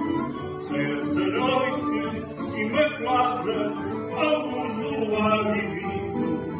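A ballad: a voice singing a slow melody over acoustic guitar accompaniment.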